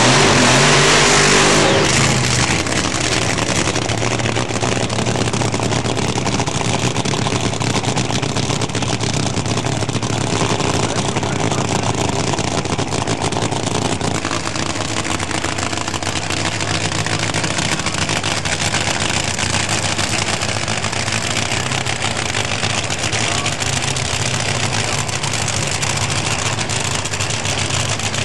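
Rail dragster's engine, very loud for about the first two seconds during a burnout, then running at a steady loud idle rumble.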